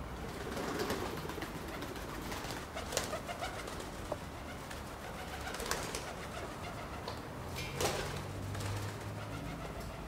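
Pigeons cooing, with a few short sharp knocks.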